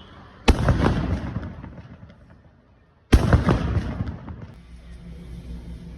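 Two loud explosion bangs about two and a half seconds apart, each followed by crackling and rumbling that fades over a second or two: the simulated explosion that starts a fire-brigade disaster drill.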